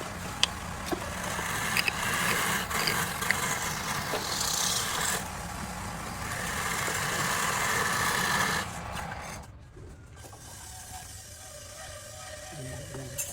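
A palm-wood bowl spinning on a wood lathe while a tool works it, making a steady rasping, scraping hiss. The rasping drops quieter about two-thirds of the way through.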